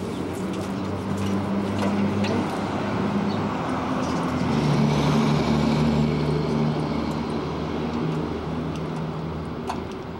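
A motor vehicle engine running, a steady low hum whose pitch drops and grows louder about four and a half seconds in, with a few light clicks.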